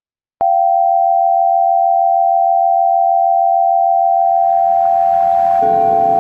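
Emergency Alert System–style attention tone: a loud, steady two-pitch tone that starts abruptly about half a second in. From about four seconds in, a noisy, siren-like sound with gliding pitches swells in beneath it.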